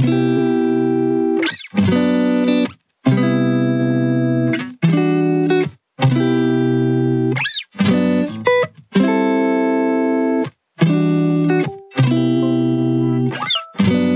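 Background music: a string of held chords, each lasting about a second and broken off by short sudden gaps.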